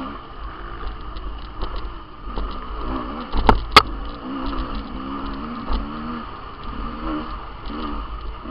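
GasGas off-road motorcycle engine running hard on a rough dirt trail, its pitch rising and falling as the throttle is worked, over a steady low rumble. Two sharp knocks come close together about three and a half seconds in.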